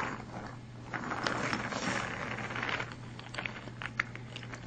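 Light clicking and rattling of plastic toy trains being handled and moved along the track: a soft shuffle, then a run of short sharp clicks.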